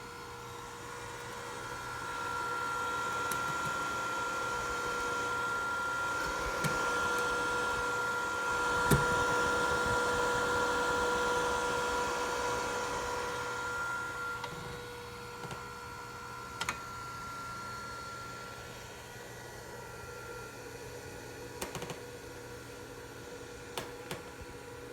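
Power inverter humming with a steady whine of several tones while overloaded; it grows louder about two seconds in and eases off after about fourteen seconds, with a few sharp clicks.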